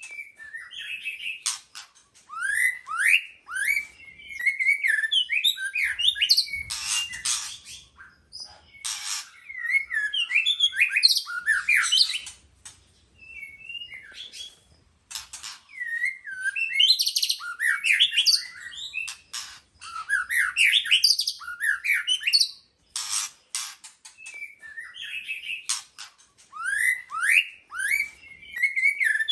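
White-rumped shama singing: phrases a few seconds long of quick rising whistled sweeps mixed with sharp clicks, separated by short pauses.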